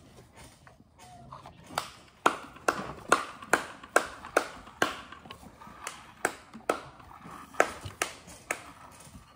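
Hand milking a sheep: squirts of milk hitting a clear container, one short sharp splash with each squeeze, about two a second, starting a couple of seconds in and stopping shortly before the end.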